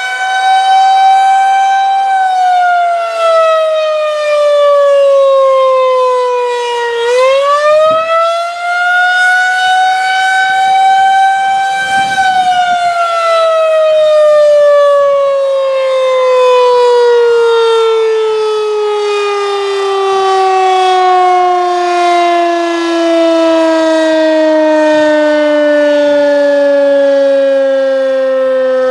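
Federal Signal 2001-130AC rotating outdoor warning siren sounding its attack signal. It holds a steady pitch, slides down, climbs back about seven seconds in, then from about twelve seconds in winds down in a long slow fall in pitch, its loudness swelling and fading as the head rotates.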